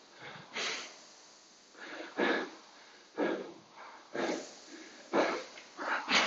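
A man's hard, noisy breathing, short breaths about once a second, as he gets his breath back after a hard piece on an indoor rowing machine.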